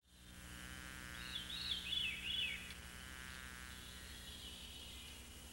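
Meadow ambience fading in from silence: a bird sings a short warbling phrase of high notes about a second in, over a steady insect buzz.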